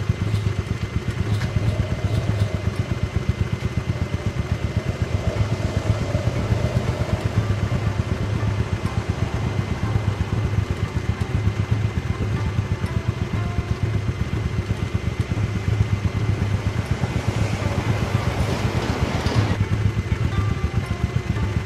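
A motorcycle engine idling steadily, with a fast, even low pulse. A hiss swells for a couple of seconds and stops abruptly near the end.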